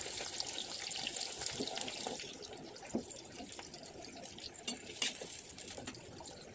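Chopped onions sizzling in hot mustard oil in a kadai. The hiss fades gradually, with a few sharp crackles.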